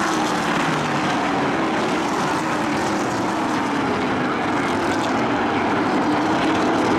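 Engines of a pack of racing pickup trucks running at speed around the oval: a steady, dense engine drone whose pitch drifts up and down as the trucks go by.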